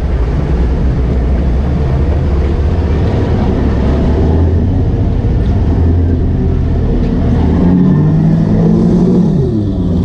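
A boat engine running steadily at low speed, with water and wind noise; its pitch falls near the end.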